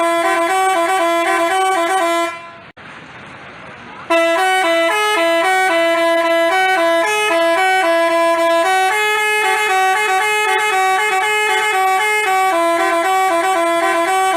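Basuri-style telolet bus horn playing a tune of stepped, held notes. It breaks off a little over two seconds in, leaving only background noise for under two seconds, then starts the tune again.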